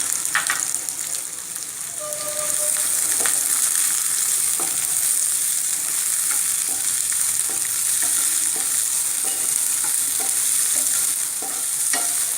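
Chopped sweet corn, capsicum and carrot sizzling in hot oil in a pan while being stirred, with a utensil tapping and scraping the pan about twice a second. The vegetables are being lightly sautéed until they start to change colour.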